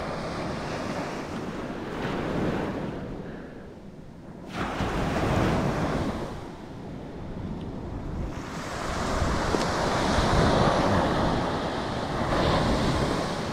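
Ocean surf breaking and washing up the sand, swelling and fading several times, with wind buffeting the microphone.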